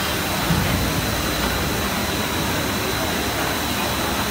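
Steady machine noise of a running extrusion blow molding machine making 15-litre plastic jerrycans, with a thin steady high tone, against the din of an exhibition hall.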